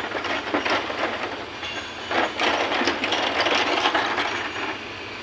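Metal parts of an opened motorcycle engine crankcase clicking and rattling as its gears, shafts and bearings are handled and turned by hand.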